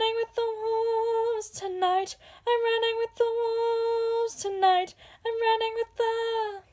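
A girl singing unaccompanied: a string of held notes at nearly one pitch, in short phrases broken by breaths, dipping lower twice.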